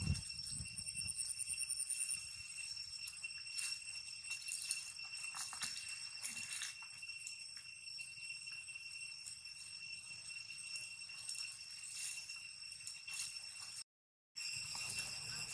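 Steady high-pitched drone of insects at several pitches, with faint rustles and clicks in the grass. The sound cuts out completely for about half a second near the end.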